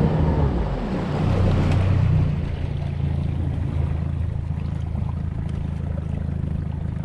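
Boat's outboard motor running as it pushes the boat up a shallow creek, with water rushing along the hull. The engine pitch rises and falls over the first couple of seconds, then settles to a steadier, slightly quieter drone.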